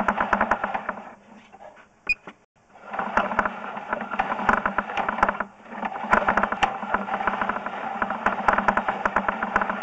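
Sewer inspection camera's push cable being pulled back out of a cast iron sewer line: a fast, dense rattle of clicks over a low steady hum. It drops away about a second in, returns near the three-second mark, and dips briefly again around five and a half seconds in.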